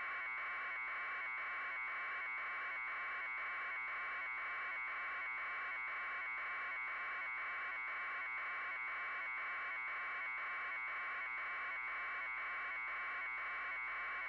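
A steady buzzing noise pulsing in an even rhythm, unchanging throughout.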